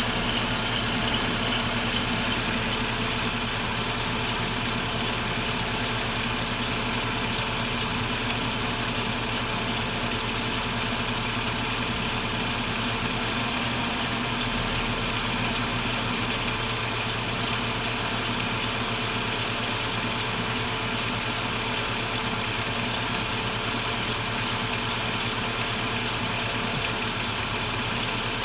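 BMW 530i engine idling, with a sharp, high-pitched squeak repeating quickly and evenly, several times a second.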